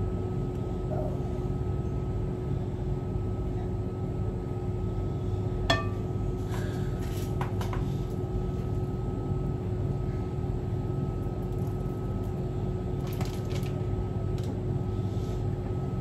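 A steady mechanical hum with a faint fixed whine, and a sharp ringing clink about six seconds in followed by a few light knocks: a spoon tapping the muffin tray and paper cases while it fills them with magdalena batter.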